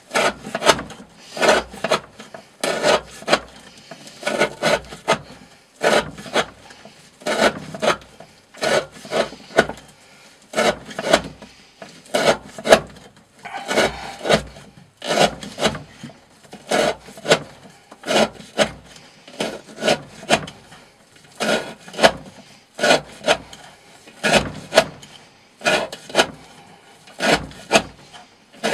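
Green Thorn 95 Hati knife with a D2 steel blade and a 40° edge slicing through 20 mm rope in a long run of repeated cuts, each a short rasping stroke, about one a second and often in quick pairs. This is one hundred-cut round of a rope-cutting test of how long the edge stays sharp, with the cuts getting harder as the edge dulls.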